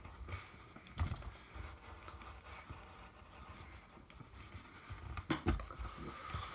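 Pencils scratching on paper as two people draw. There is a light knock about a second in and another pair of knocks near the end, likely hands or pencils bumping the table.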